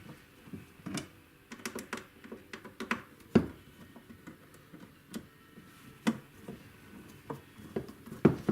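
Irregular light clicks and taps of small parts and tools being handled while a pickup winder is worked on at the bench, with one sharper knock about three and a half seconds in.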